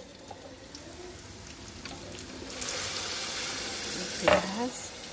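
Hot water poured into a pot of rice fried in olive oil, hissing and sizzling as it hits the hot oil; the hiss comes up about halfway through and holds. A single loud knock sounds near the end, as the pot is stirred.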